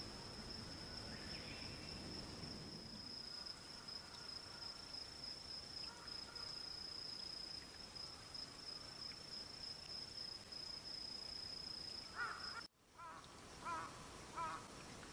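A night insect's steady, high-pitched trill that cuts off suddenly past twelve seconds in, followed by a few short wavering calls from an animal near the end.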